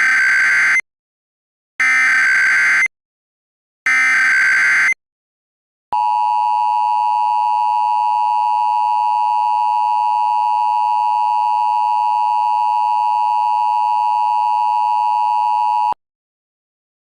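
Emergency Alert System tones: three short digital data bursts (the SAME header), each about a second long with a second's gap, then the steady two-tone EAS attention signal held for about ten seconds before cutting off suddenly.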